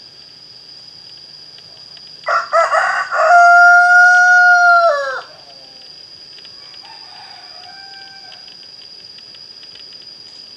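Rooster crowing once, about two seconds in: a few short choppy notes, then a long held note that drops away at the end. A much fainter, shorter call follows a couple of seconds later.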